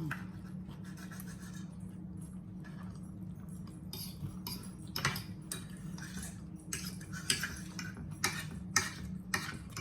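Cutlery clicking and scraping on plates during eating, in scattered short strokes that come more often in the second half, over a steady low hum.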